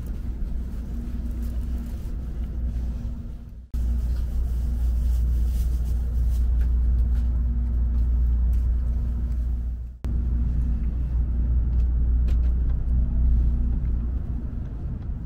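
Steady low rumble of a Shinkansen bullet train running, heard inside the passenger car, with a steady low hum over it. The sound breaks off abruptly twice, about four and ten seconds in.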